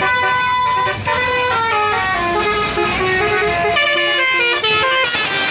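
Bus's basuri melody horn playing a tune: a continuous run of held horn notes stepping up and down in pitch.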